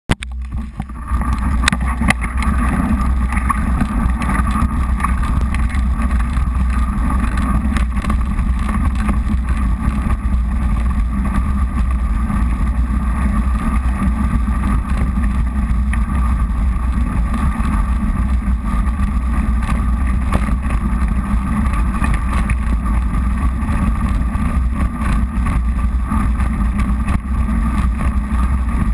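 Mountain bike ridden over a snowy, icy trail: steady wind rumble on the camera with tyre crunch and rattle from the crunchy frozen ground, rising to full level about a second in.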